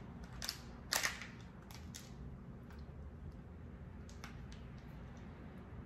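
Sharp cracks and clicks of a boiled lobster's shell being pried and broken apart by hand to get at the meat, the loudest about a second in and a few smaller ones after. A low steady hum runs underneath.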